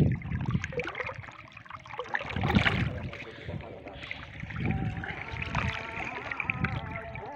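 River water splashing and sloshing in uneven surges as a hooked fish is drawn up to the surface on a set line. A faint, slightly wavering whine joins about halfway through.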